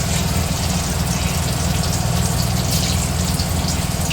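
Chicken koftas sizzling and crackling as they fry in hot oil in a kadai, a steady hiss over a low rumble.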